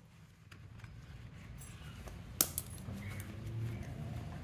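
Small clicks of electrical test leads and clips being handled, with one sharp click about two and a half seconds in, over a low steady background rumble.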